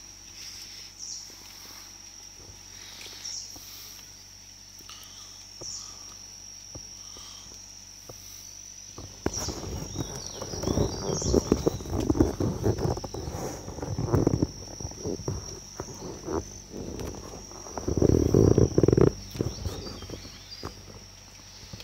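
Insects keep up a continuous high-pitched drone. From about nine seconds in, loud low rumbles and close knocks and rustles come over it in two spells.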